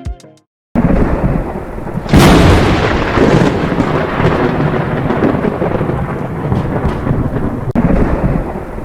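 Rain falling steadily, with a loud clap of thunder about two seconds in that rumbles on and slowly fades.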